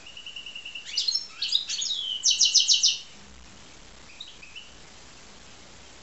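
Goldfinch × canary hybrid (a mule finch) singing: a phrase that opens with a fast even trill, runs into quick sweeping notes and ends in a loud rapid trill about three seconds in, followed by a few soft notes.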